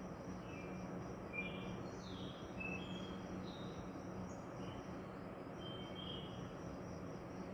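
Scattered short whistled bird calls, a few sliding down in pitch, with the birds now calmer than their earlier screeching. A steady high insect chirring and a low hum run underneath.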